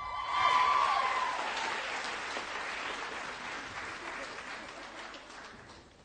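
Audience applause with some cheering, starting just as the music stops, loudest in the first second and then fading away steadily.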